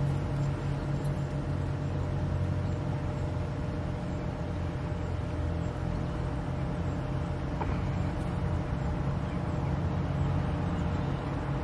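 Pool pump motor running with a steady hum as water flows through the filter's multiport valve and out the backwash hose during a filter backwash.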